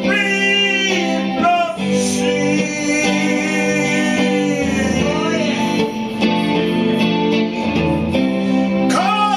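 A song: a singer holding long, gliding notes over guitar accompaniment.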